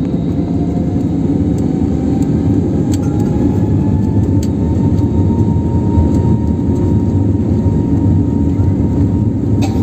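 Airliner's jet engines at takeoff power during the takeoff roll, heard from inside the cabin: a steady loud rumble with an engine whine slowly rising in pitch, and a few faint clicks.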